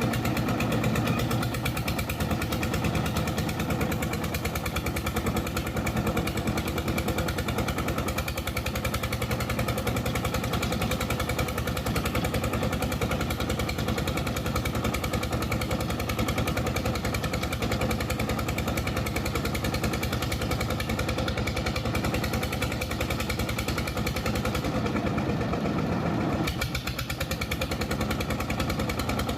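Jiangdong 1125 single-cylinder diesel boat engine running steadily with a rapid, even chugging beat, with a brief softening in its sound about 26 seconds in.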